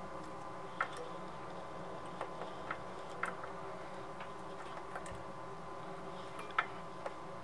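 Metal multimeter probe tips tapping and scraping on the legs of power transistors on an amplifier heatsink while checking them for shorts: scattered light clicks, about eight, the sharpest near the end, over a steady background hum.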